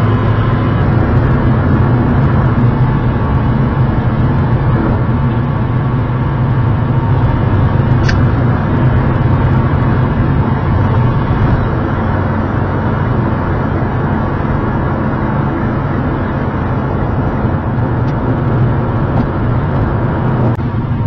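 Steady road and engine drone heard inside a car's cabin while driving on a motorway, with a single brief click about eight seconds in.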